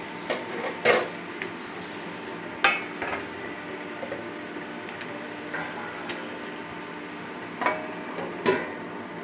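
Onion, carrot and capsicum sizzling in ghee in a steel pan, with a spoon stirring and knocking against the pan from time to time. Later, a steel lid clatters onto the pan to cover it.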